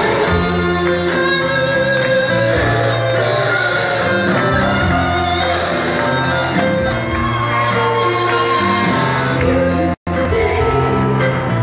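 Live pop band: women's voices singing over electric guitar and bass. The sound cuts out for an instant about ten seconds in.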